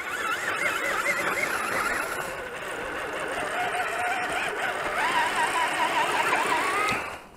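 Electric motor and gearbox of an RC scale crawler truck whining as it drives through snow, the pitch wavering up and down with throttle and load. The whine cuts off abruptly near the end.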